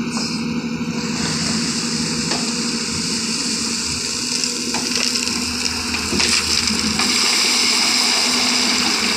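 Diesel engine of an earth-moving machine running steadily, joined about a second in by a strong steady hiss, with a few sharp knocks and clanks scattered through.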